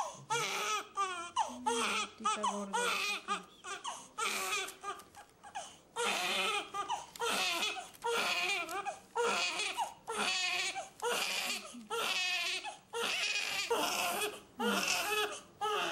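Newborn baby crying in repeated wavering wails, roughly one a second, while its pricked heel is squeezed for a screening blood sample.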